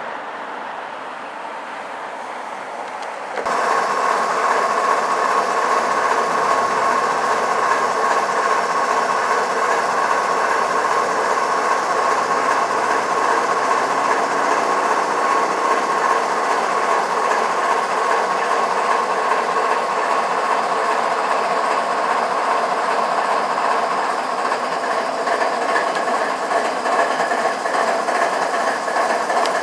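GE diesel-electric locomotives running steadily, a dense mechanical drone with a steady whine. It jumps abruptly louder about three and a half seconds in.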